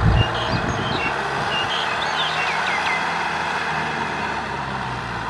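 Kubota M6040SU tractor's diesel engine running steadily under load as it pulls a rotary tiller through wet field soil, with a short knock right at the start. A few high chirps sound over it about halfway through.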